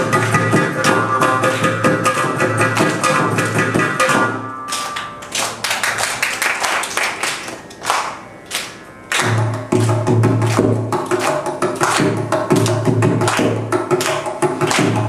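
Carnatic percussion ensemble of mridangam, kanjira, ghatam and morsing playing a tani avartanam, dense interlocking strokes over the morsing's twang. About four seconds in the texture thins to a quieter passage of sparse single strokes, and the full ensemble comes back in about nine seconds in.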